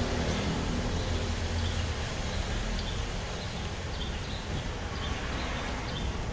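Steady roadside traffic noise, a low rumble of passing vehicles.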